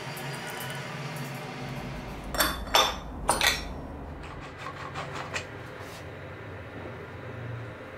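Sharp metal clanks of a chuck wrench on the lathe's chuck as the turned wooden plate is loosened and taken off: four loud knocks close together about two and a half to three and a half seconds in, then a few lighter clicks, over a low steady hum.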